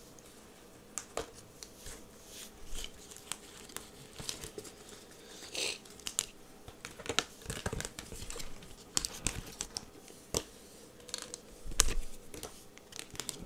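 Tarot cards being handled and gathered up: irregular snaps, flicks and short swishes of card stock, with the loudest snap near the end.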